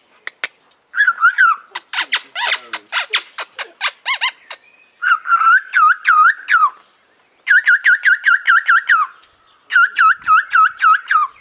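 Amazon parrot making rapid runs of repeated squeaky, whistled notes, about five or six a second, in four bursts of a second or two each with short pauses between.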